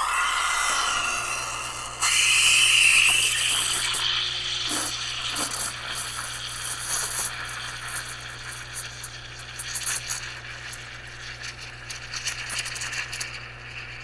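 Izzo Alex PID espresso machine brewing a shot: its vibratory pump hums steadily from about a second in, under hissing water and espresso streaming into the cups. The hiss is loudest about two to four seconds in, then slowly eases.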